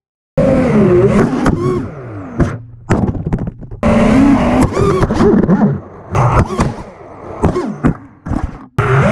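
Brushless motors and props of a five-inch FPV freestyle quadcopter whining, the pitch swooping up and down with the throttle. The sound drops away briefly about three seconds in and again near the end.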